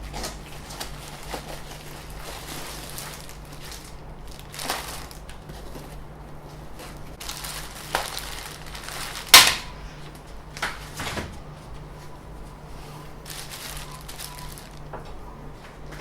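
Packing material and printer accessories being handled, with rustling and several knocks and clacks; the loudest is a sharp clack about nine seconds in.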